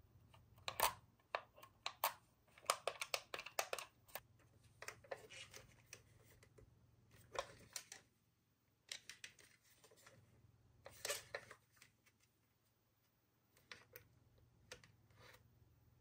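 Hard plastic toys being handled: scattered clicks, taps and light rattles in short clusters as a posable figure and a plastic toy ride vehicle are turned over in the hands.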